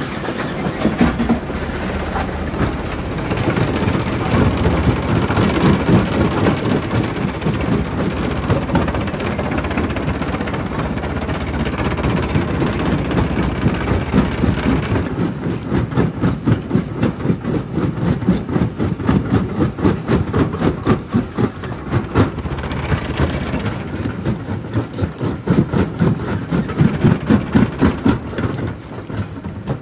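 Jaw crusher running and crushing stone: a continuous heavy rumble and clatter with a fast, steady pulse, which becomes more distinct about halfway through.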